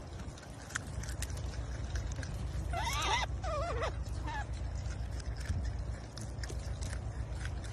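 Marmots gnawing on a carrot with small crisp clicks, and a short run of high, wavering squeals about three seconds in, over a low steady rumble.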